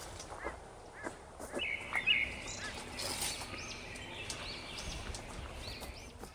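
Wild birds calling: repeated short chirps, with a longer run of continuous calling from about a second and a half in until near the end.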